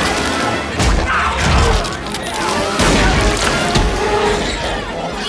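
Chaotic action-film sound mix: shouting and screaming voices over music, with heavy booms and crashes about a second in and again around three seconds in.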